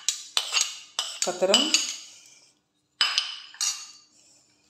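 A spoon clinking and scraping against bowls, several sharp clinks spread over a few seconds, as a wet chopped ginger, garlic and green chilli mix is spooned out.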